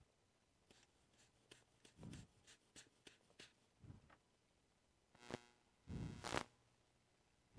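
Quiet, scattered small clicks and scratches of tools being handled at an electronics repair bench, with a few louder knocks a little past halfway.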